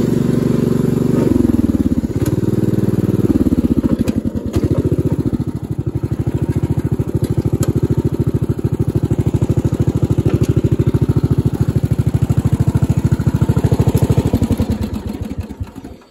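Craftsman LT1000 riding mower's 14.5 hp overhead-valve engine running, throttled down in two steps in the first few seconds to a slow, evenly pulsing idle. It then dies away as it is shut off near the end. The engine runs smoothly on its aftermarket carburetor.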